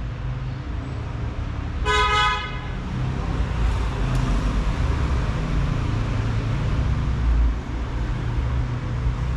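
A car horn gives one short toot about two seconds in, over a steady low rumble of street traffic.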